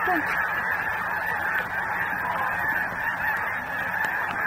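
A huge flock of snow geese honking, a dense, steady chorus of many overlapping calls.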